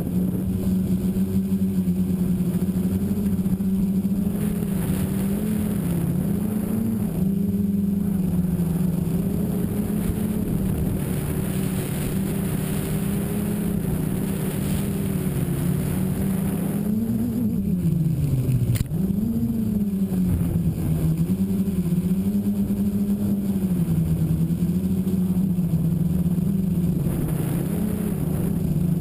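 Tricopter's electric motors and propellers buzzing in flight, the pitch wavering up and down with throttle changes. About two thirds through, the pitch drops sharply and climbs back, with a brief click near the low point.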